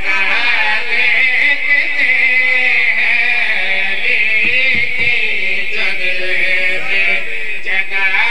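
A man chanting a line of an Urdu qasida in a long, drawn-out melody, amplified through a microphone.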